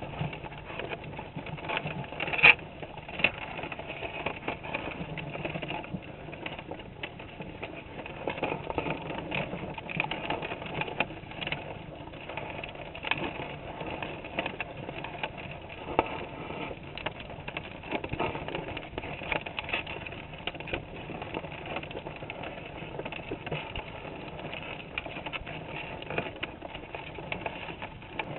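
Muffled underwater sound through a GoPro's waterproof housing, with frequent sharp clicks and scrapes from crawdads crawling over the camera and the wire mesh of the minnow trap. One click about two and a half seconds in is much louder than the rest.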